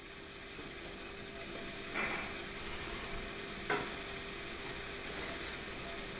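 Quiet background hiss with a faint steady hum, broken by two brief soft knocks, about two seconds in and again near four seconds in.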